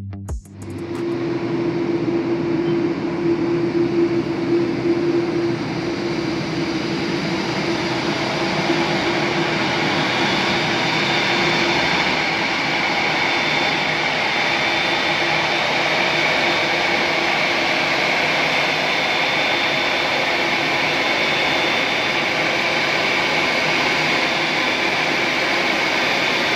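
Boeing 787-8 Dreamliner jet engines running on the ground: a loud, steady roar with a high whine, and a low steady hum for the first half or so.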